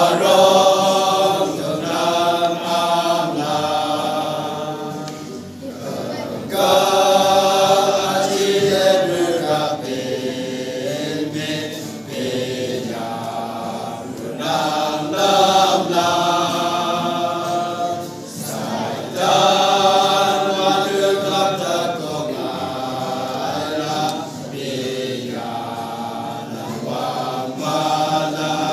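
A small mixed choir singing a hymn together, voices held on long notes in phrases with short breaks for breath between them.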